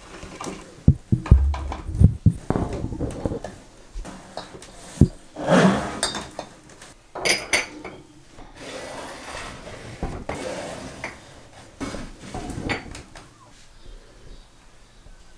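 Plastic milk-carton bottles and glass cups with bamboo lids being set down and slid into place on a shelf: irregular knocks and clinks, the loudest in the first half.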